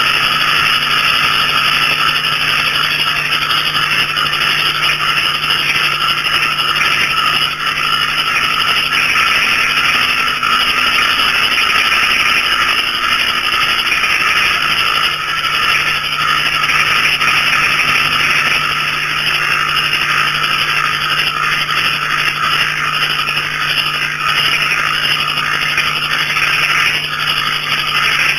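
A dense night chorus of small frogs and crickets calling together. It is a steady, rapid trilling and chirping with no pauses.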